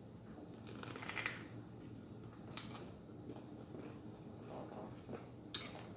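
Faint rustling and a few short clicks, like small objects or clothing being handled, over quiet room tone.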